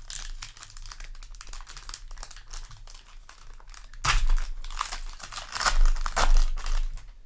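Trading card booster pack wrapper crinkling as it is handled and torn open, in many small crackles with louder bursts of rustling about four seconds in and again near the end.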